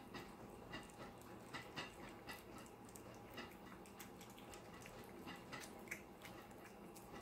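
Three cats eating food from bowls: faint, irregular chewing and lapping clicks, about two or three a second.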